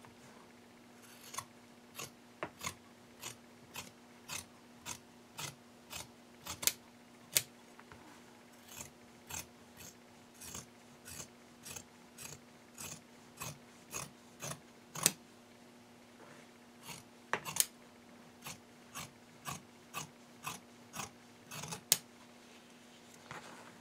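Scissors snipping through a stack of several layers of fabric, a steady run of sharp blade closes about two a second, with a couple of short pauses.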